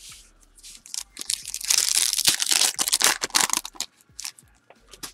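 Foil wrapper of a trading-card pack being torn open and crinkled, a dense crackle that is loudest in the middle, followed by a few light ticks.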